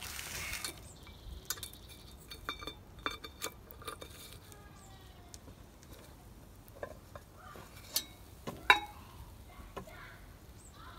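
Metal lid lifter clinking and scraping on a cast-iron Dutch oven lid as the coal-covered lid is hooked, lifted off and set aside, with a run of scattered clicks and a sharp, ringing metallic clink near the end.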